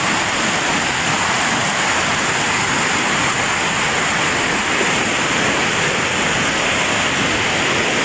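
Swollen river rushing over rapids: a steady, unbroken rush of whitewater.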